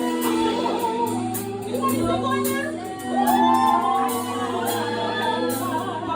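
Music playing: a slow song with sustained keyboard or synth chords, a steady beat and a wordless vocal melody.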